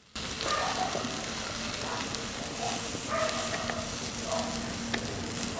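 Hot stir-fried vegetables sizzling as they are pushed out of a metal wok into an aluminium bowl, with scattered clicks and scrapes of the spatula against the metal.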